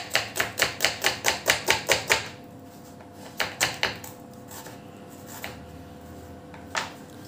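Knife chopping a peeled onion on a plastic cutting board, dicing it fine: a quick run of about a dozen knocks, around five a second, in the first two seconds, a few more a little later, then single cuts.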